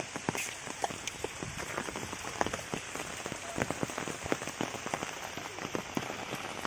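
Steady rain falling, with many separate drop hits over an even hiss.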